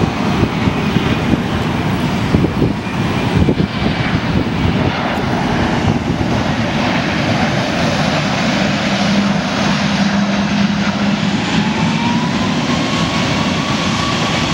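A Boeing 737 airliner's jet engines running as it flies low on final approach and comes in to land, a steady roar. Near the end a whine rises in pitch.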